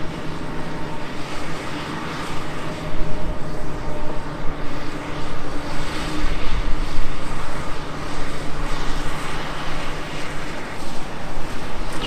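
Diesel engine of a Komatsu PC360LC excavator running under working load, a steady drone that swells and eases several times as it works.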